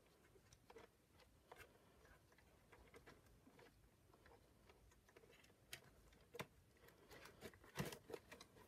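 Near silence with faint, scattered clicks and small rustles of plastic parts and wires being handled by gloved hands, growing busier with a louder click near the end.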